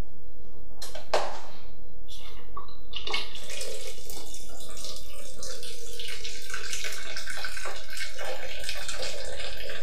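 Wort running from the valve of a picnic-cooler mash tun and splashing into a plastic bucket, the first cloudy runnings drawn off for recirculation. A few light knocks come first, then from about three seconds in a steady splashing.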